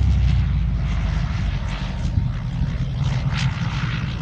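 Propeller airplane engine running, a steady low drone under a hiss of air noise.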